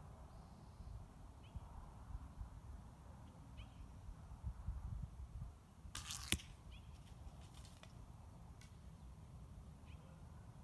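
A single shot from a 50 lb English longbow about six seconds in: a brief rush as the arrow is loosed, ending in one sharp snap of the string. Wind rumble on the microphone and a few faint bird chirps.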